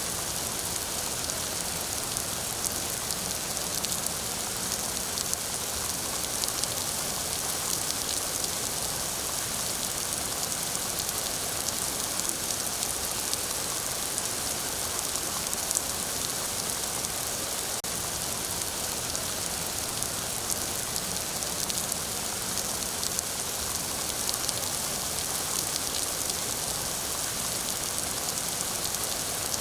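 Steady rain falling, a constant hiss with fine pattering drops and no thunder.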